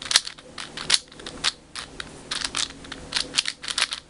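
Plastic Moyu Weisu 4x4 speedcube's layers being turned, clicking and snapping in an irregular series of short clicks, several a second, as the layers are forced through offset turns to test corner cutting.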